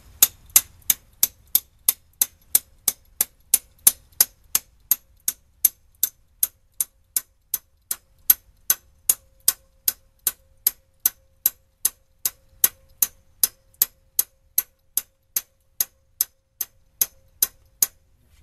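Sharp, evenly spaced ticking, about three ticks a second, as steady as a clock.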